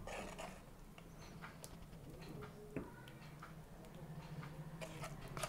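Faint scattered clicks and light taps of a spatula spreading pav bhaji on a steel plate, the sharpest tap nearly three seconds in, over a low steady hum.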